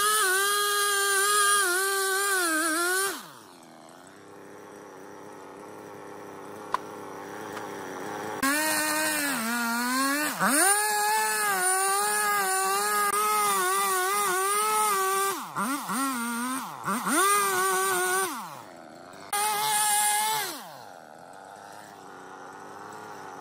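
Husqvarna two-stroke chainsaw at full throttle cutting through a log, its pitch wavering under load. About three seconds in it drops to idle, then is revved up again for about ten seconds with several brief dips and blips before falling back to idle near the end.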